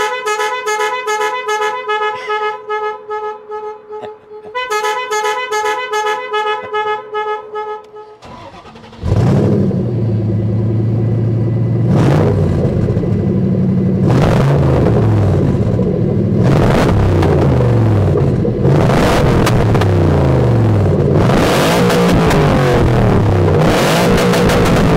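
Factory Five Daytona coupe's engine: rapid high-pitched pulsing with a short pause for the first eight seconds or so, then the engine catches, runs loud and is revved again and again, its pitch rising and falling several times.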